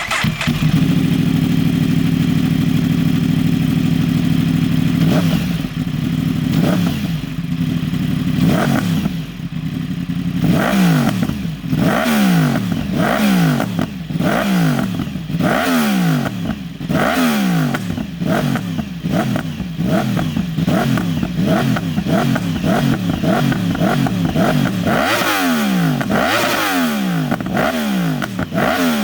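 2015 Yamaha R1M's crossplane inline-four running through an Akrapovic full titanium exhaust. It idles steadily for about five seconds, then is blipped over and over: each rev rises sharply and falls back, about one a second, coming quicker near the end.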